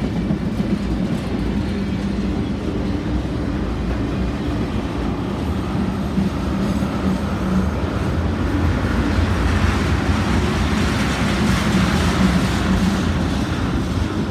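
Freight train cars rolling past: a steady rumble and rattle of steel wheels on the rails, growing louder from about nine seconds in.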